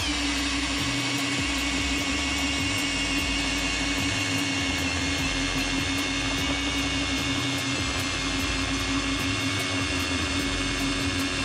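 Ridgid cordless hammer drill spinning an Eskimo pistol-bit ice auger, boring a hole through lake ice. The motor whine settles in the first instant and then holds one steady pitch until it stops at the end.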